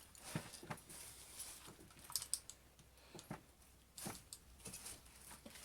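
Light plastic clicks and taps from the toy SPAS 12 airsoft shotgun being handled, a handful of them at irregular spacing.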